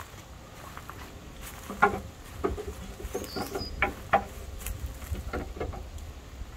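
Wooden beehive boxes being handled and set down, knocking together in a handful of sharp wooden knocks, the loudest about two seconds in.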